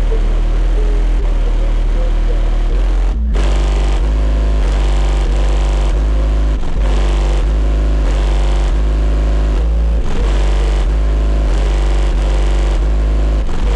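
Bass-heavy music played very loud through a car audio system with six Resilient Sounds Platinum 15-inch subwoofers, deep bass notes dominating. The music drops out briefly about three seconds in.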